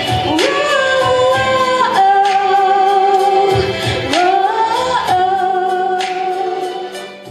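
Female vocals singing a song with instrumental accompaniment and a steady beat, holding long notes with upward slides; the music fades out near the end.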